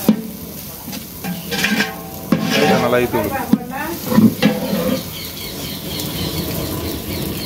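Long flat metal ladle stirring and scraping biryani masala around a large aluminium pot, the masala sizzling as it fries, with a few sharp clanks of the ladle against the pot in the first half.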